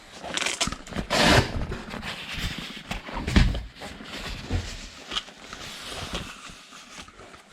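Clicks and knocks of hands and tools on a combi boiler's valves and pipework as it is isolated and drained down. A short, sharp hiss comes about a second in.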